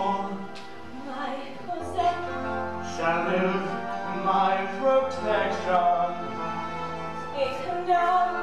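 Live stage-musical performance: a singing voice over slow instrumental accompaniment with long held notes and a sustained bass line.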